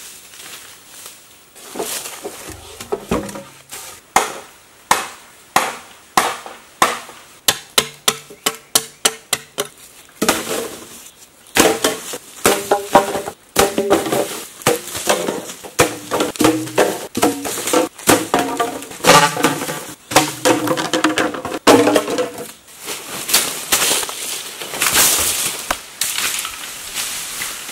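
Bamboo stalks being chopped: a long run of sharp strikes, at first about two a second and then quicker, with the hollow bamboo ringing at each blow. A longer rustling noise comes near the end.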